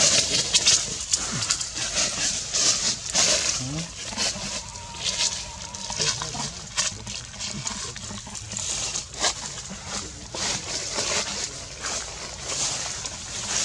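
Macaques with soft animal calls and short low grunts over an irregular crackling rustle, like dry leaves being handled.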